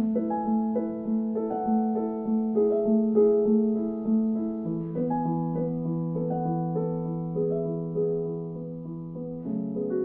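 Slow, gentle piano background music: single melody notes that ring and fade over held low notes, which change about halfway through and again near the end.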